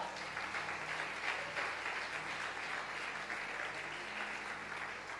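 Congregation applauding, the clapping thinning and fading toward the end.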